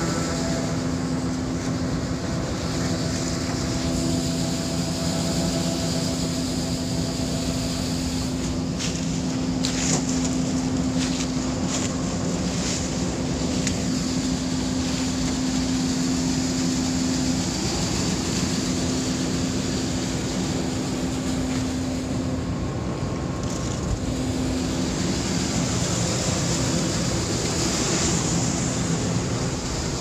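Combine harvester running steadily, a continuous engine and machinery drone with a low hum, with a few sharp knocks about ten seconds in.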